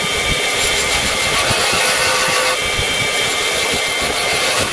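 Belt grinder running, its abrasive belt grinding the steel of a Damascus kitchen knife blade with a steady hiss over a constant whine. The hiss gets brighter about halfway through.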